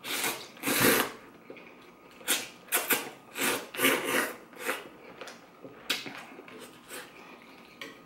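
Loud slurping of rice noodles from a bowl of chicken pho: two long slurps in the first second, then a quick string of shorter slurps about two to five seconds in, tailing off into softer eating sounds.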